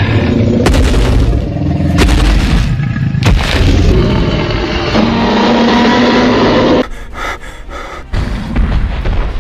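Dramatic film-style soundtrack: loud booming hits that start suddenly about one, two and three seconds in, over a dense sustained layer that cuts off sharply about seven seconds in, leaving quieter music.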